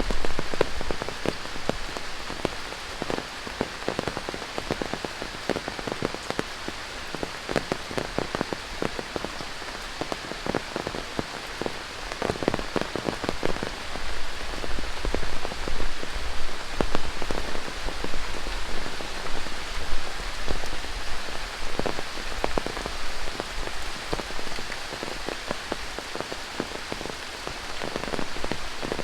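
Tropical rain falling steadily, with many close drops striking in quick, irregular succession over a constant hiss of rain; the drops come thicker about halfway through.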